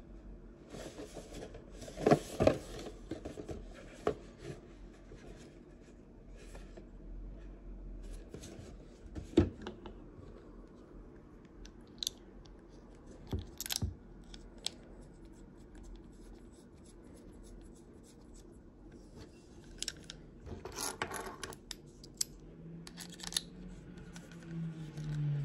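Handling noise from a Shimano Twin Power 4000 FC spinning reel and its cardboard box: cardboard rubbing and scraping, scattered clicks, and a few sharp knocks as the box and reel parts are moved about. Near the end the reel's crank handle is fitted into the reel body.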